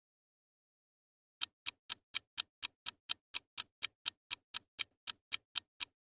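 Ticking clock, about four even ticks a second, starting about a second and a half in: a quiz countdown timer.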